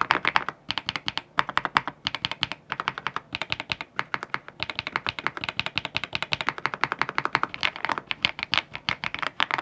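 Fast typing on a mechanical keyboard fitted with ceramic keycaps: quick runs of keystrokes, several per second, broken by brief pauses.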